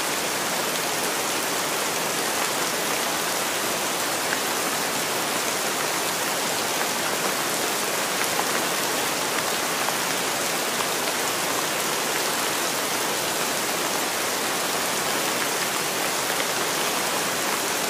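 Steady rain, an even hiss with a fine patter of drops.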